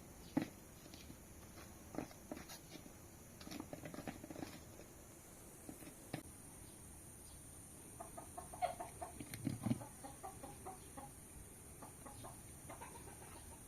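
Chickens clucking in short, soft calls, mostly in a cluster about two-thirds of the way in, among a few scattered knocks and clicks.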